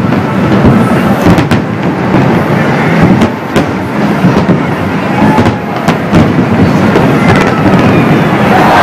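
Harbour fireworks display going off in quick succession: a continuous low rumble of bursts with sharp bangs scattered through it.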